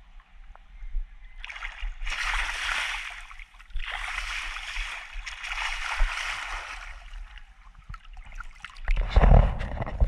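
Pool water splashing against a GoPro camera sitting at the waterline: three rushing splashes a second or two apart, then heavy, choppy water thudding against the camera near the end.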